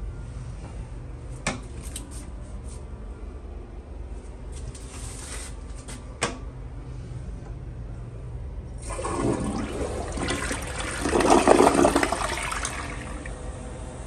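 TOTO tank-type toilet flushed with its chrome side trip lever: the water rushes into the bowl about two-thirds of the way in, grows loudest a couple of seconds later, then drains away and fades. Two sharp clicks come before the flush.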